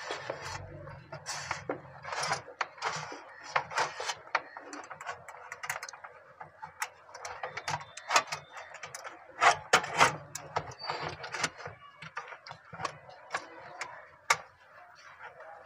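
Irregular clicking, tapping and rustling of electrical wire being pulled out and handled.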